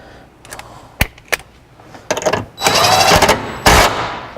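Impact gun driving a seat belt anchor bolt tight in a few short bursts, the longest lasting about a second in the middle and another near the end, after a couple of sharp clicks.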